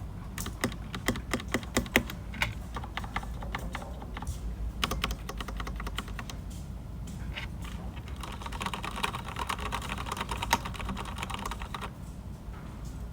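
Typing on a Dugard x Thinkway Tochef mechanical keyboard with red linear switches, irregular keystrokes in bursts. The typing is fastest and densest for a few seconds near the end.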